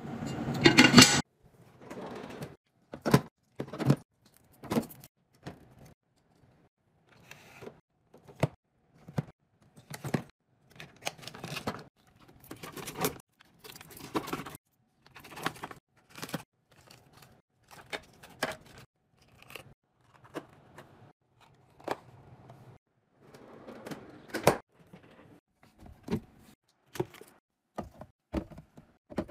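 Irregular clatter and crinkle of items being handled and set down: foil juice pouches crinkling as they are packed into a fridge drawer, and bottles clacking into clear plastic fridge bins.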